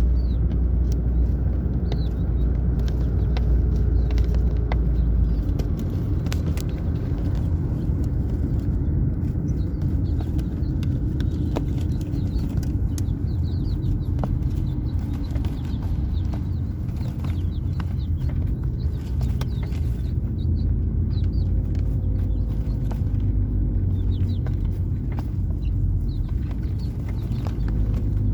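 A steady low rumble with faint, short high peeps from young chickens scattered through it, and a few light clicks.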